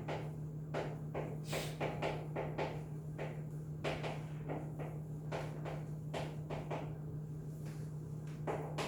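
Irregular light knocks and taps, a few a second, over a steady low electrical hum.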